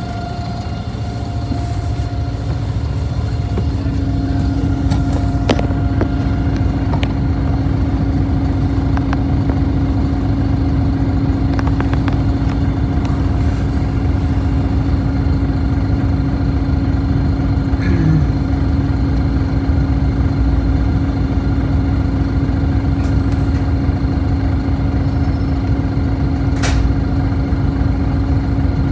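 City bus engine idling, heard from inside the passenger cabin, with a steady hum that sets in a few seconds in. A sharp click near the end.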